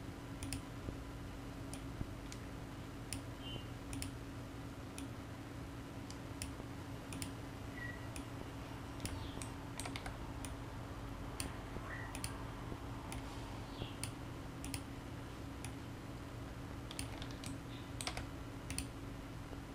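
Faint, irregular clicks from a computer mouse and keyboard, over a steady low hum.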